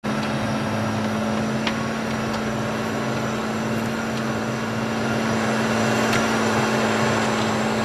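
A 280-horsepower McCormick tractor's engine running steadily under load, a constant drone, while it drives a Falc Freeland rotary plough through wet soil.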